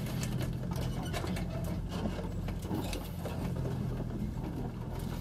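Four-wheel-drive vehicle's engine running at low speed, heard from inside the cab as a steady low drone, with frequent light clicks and rattles as it drives over a snowy track.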